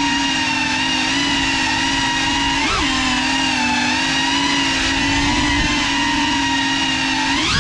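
GEPRC FPV quadcopter's brushless motors and propellers whining steadily in flight, with a brief pitch blip about three seconds in and a sharp rise in pitch at the very end as the throttle is punched.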